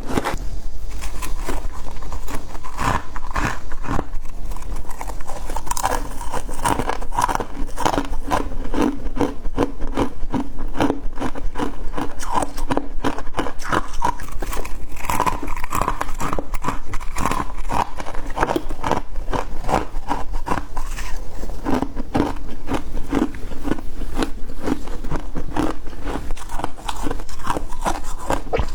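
Close-up chewing and crunching of freezer frost and ice: a dense, continuous run of crackling bites and crunches.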